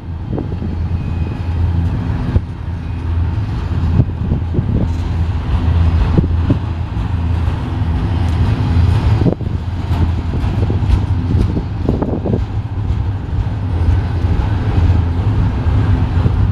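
BNSF double-stack container train's well cars rolling past close by: a steady low rumble of steel wheels on rail, with frequent knocks and clanks.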